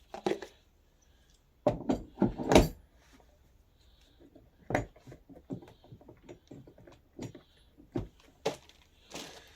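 Plastic knocks and clicks of a ride-on toy's front wheel and its rubber hub plugs being handled and fitted toward the axle. A few loud knocks come about two seconds in, then lighter scattered clicks.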